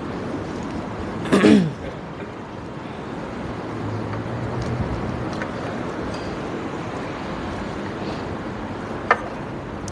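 Steady background noise of a mosque's prayer hall, with one short loud sound that falls in pitch about a second and a half in and a sharp click near the end.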